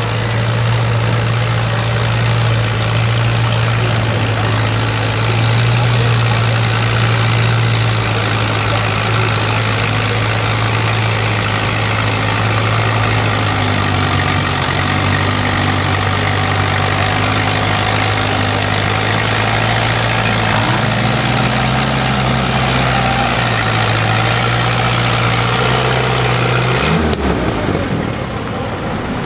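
Small Allis-Chalmers tractor engine running steadily under load as it pulls a weight-transfer sled. The engine note shifts in pitch a couple of times and drops off abruptly near the end as the pull finishes.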